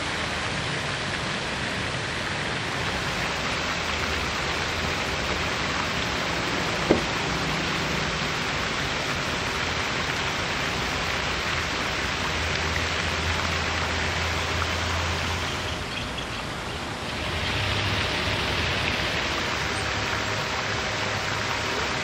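Steady rushing outdoor noise, like wind or moving water, with one sharp click about seven seconds in and a brief dip in level about sixteen seconds in.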